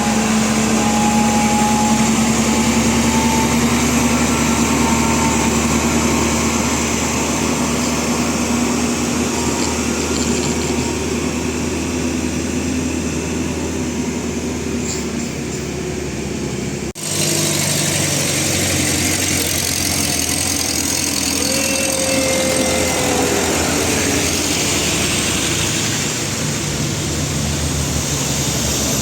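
Heavy diesel vehicle engines labouring up a steep climb: a loud, steady engine drone with a held tone. About 17 seconds in the sound cuts abruptly to another engine running under load.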